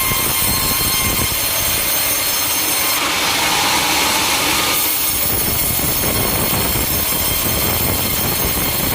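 Sawmill machinery running steadily, with a saw cutting through wood for about two seconds a few seconds in, a sharp hissing rise in the high sound.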